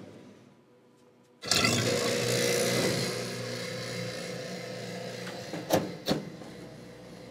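Vacuum pump for a vacuum casting machine switching on about a second and a half in, running with a steady hum and hiss. It gets gradually quieter, and two sharp clicks near the end come as the cabinet housing it is shut.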